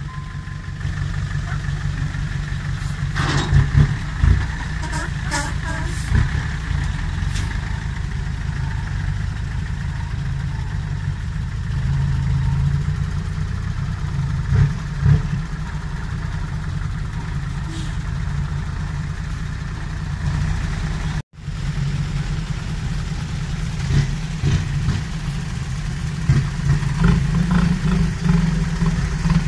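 Six-wheel dump truck diesel engines running steadily at low revs, with a few sharp knocks a few seconds in as the tipping bed unloads dirt.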